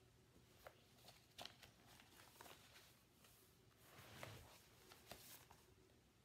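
Faint rustles and soft taps of a picture book being handled and turned around to show its page, with a louder rustle about four seconds in.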